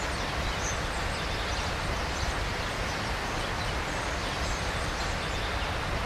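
Steady rushing noise of a river, with a few faint high chirps over it.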